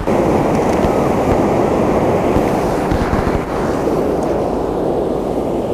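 Ocean surf breaking on the beach: a steady rushing noise that comes in suddenly and holds without a break, likely mixed with wind on the microphone.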